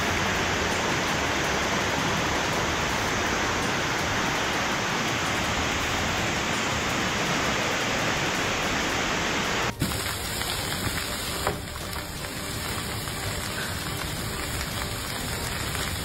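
Hail and heavy rain pelting down, a steady dense hiss of many small impacts. About ten seconds in it cuts abruptly to another recording of the same downpour.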